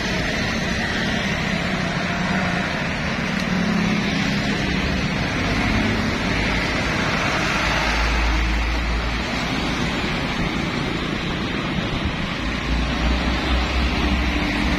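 Roadside traffic noise: trucks and motorbikes passing close by, a steady wash of engine and tyre noise. A deep low rumble swells about halfway through and again near the end as heavy trucks go by.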